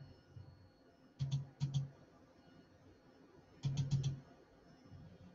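Clicking at a computer: two quick double-clicks a little past one second in, then a run of about four clicks near four seconds, each click with a dull low thud beneath it.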